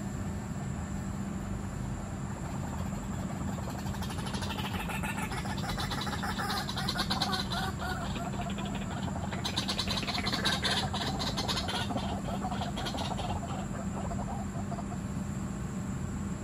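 White-breasted waterhen calling: a fast, croaking run of pulses that starts about four seconds in, rises and falls, and lasts several seconds. It sits over a steady low background hum.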